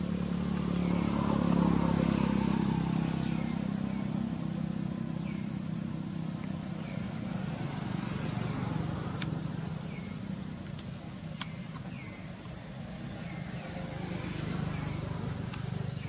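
A motor vehicle engine humming, swelling to its loudest about two seconds in and then slowly fading away.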